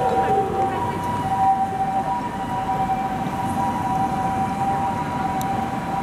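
Two-tone ambulance siren (Japanese "pee-po" type) sounding steadily over street traffic noise. A falling siren wail dies away in the first second.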